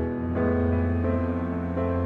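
Slow instrumental background music, with held notes that change about every half second to a second over a steady low drone.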